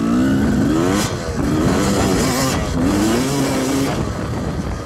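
1993 Yamaha YZ250 two-stroke single-cylinder dirt bike engine revving as the bike is ridden. Its pitch rises through the first second, there is a brief sharp noise about a second in, then the revs rise and fall twice and ease off near the end.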